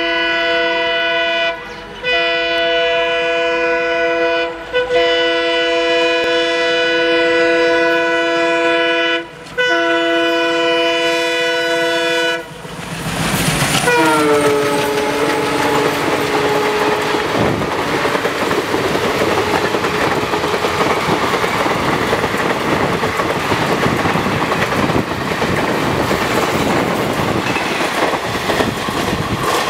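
WDM3D diesel locomotive's horn blowing a chord of several tones in four blasts, the first short and the rest long, with brief breaks between them. About 14 s in, the horn's pitch drops as the locomotive passes and the horn dies away. The steady noise of the train's coaches running past fills the rest.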